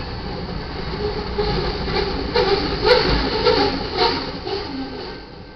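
Tail end of a freight train rolling past: wheels and cars rumbling, with a quick run of wheel clacks, about two a second, in the second half. The sound then fades near the end as the last car moves off.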